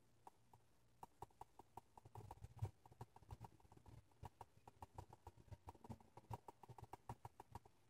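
28BYJ-48 5V geared stepper motor, driven through a ULN2003 driver, turning at its slower speed setting and making a faint, slightly uneven ticking of several clicks a second, starting about a second in.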